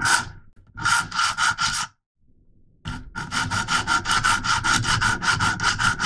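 Coarse 100-grit diamond stone on a KME guided sharpening rod, rasping back and forth across the S30V steel edge of a Leatherman Charge TTI blade. There are a few strokes, a short pause about two seconds in, then quick even strokes, about four or five a second. The stone is grinding a steeper new bevel to take out the chips in the edge.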